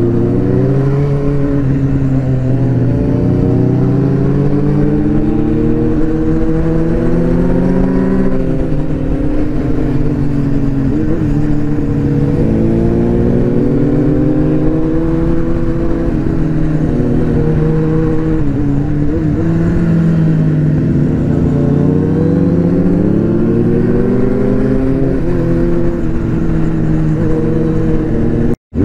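Motorcycle engine under way, its pitch rising and falling again and again as the throttle is opened and closed through the bends. Wind rushes on the helmet microphone beneath it. The sound drops out for a moment near the end.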